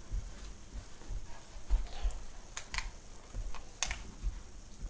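Newfoundland mother dog and her puppy scuffling on carpet as they play: scattered, irregular sharp clicks and soft low thumps from paws and bodies.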